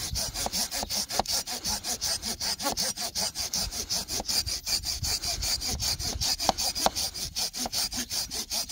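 Opinel No. 18 folding saw cutting through a log about 10–12 cm thick in quick, even back-and-forth strokes with a steady rasp. The saw goes through the wood without trouble.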